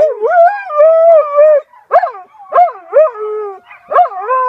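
A domesticated gray wolf and a dog howling together: one long wavering howl, then a run of shorter howls and yips that rise and fall, with a second, fainter voice holding a steady note underneath.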